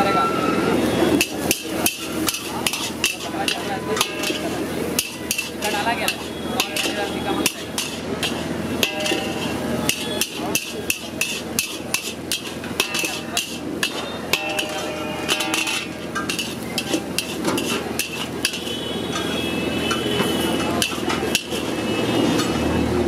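Long-handled steel spatula clanking and scraping against a large metal wok as Schezwan fried rice is stirred and tossed, in quick irregular strikes.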